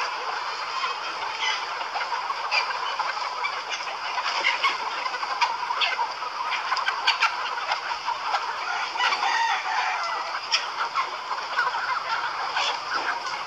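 A large flock of chickens, hens and roosters together, clucking and calling all at once: many overlapping voices with frequent short, sharper squawks standing out.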